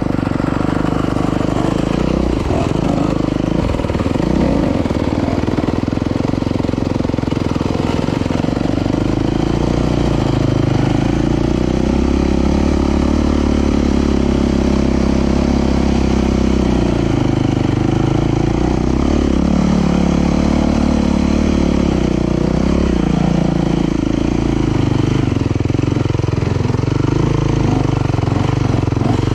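Dirt bike engine running while the bike is ridden, its pitch stepping up and down with the throttle.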